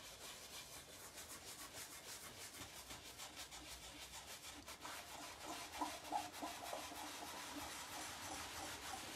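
A cloth rag rubbing back and forth over a chalk-painted wooden drawer top, wiping off a dark glaze to leave an aged finish. It is a faint, steady run of quick, repeated rubbing strokes.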